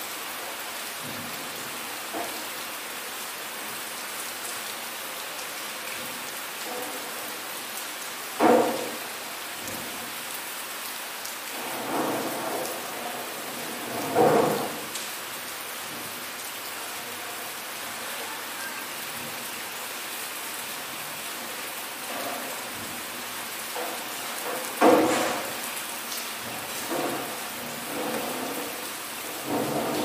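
Steady rain falling, an even hiss, broken by about six short, louder thumps, the loudest about eight and a half and twenty-five seconds in.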